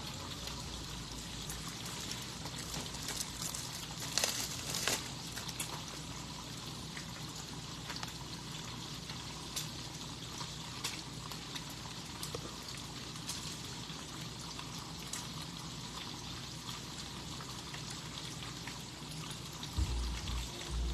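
Food sizzling steadily in a frying pan, with scattered small pops and crackles.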